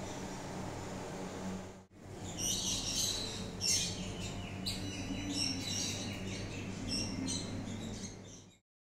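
Many quick, high-pitched animal chirps, overlapping at different pitches, over a steady low hum; the sound cuts off suddenly near the end.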